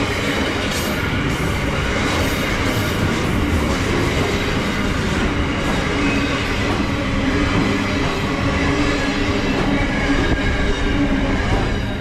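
Freight train's intermodal container wagons rolling past: a steady rumble of steel wheels on rail, with wheels clicking over rail joints in the first few seconds.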